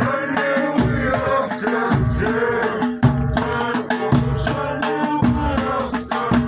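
Group of voices chanting and singing together over recurring low drum beats and rattling percussion.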